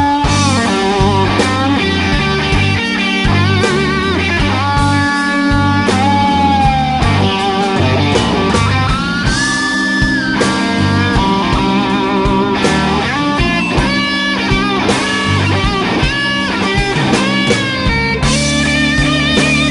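Live blues band in an instrumental break: a lead electric guitar plays long, bent notes with vibrato over a steady bass and drum groove.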